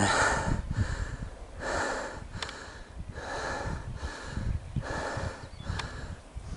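A man breathing heavily, out of breath after climbing a hill, taking a hard breath in or out about every second. Wind rumbles on the microphone underneath.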